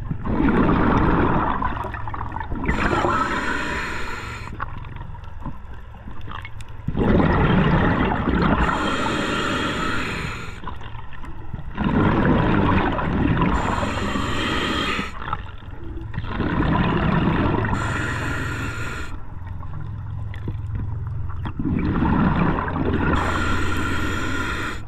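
A scuba diver breathing through a regulator underwater: about five slow breaths, roughly one every five seconds. Each breath is a loud noisy rush of breathing and bubbles followed by a shorter high hiss.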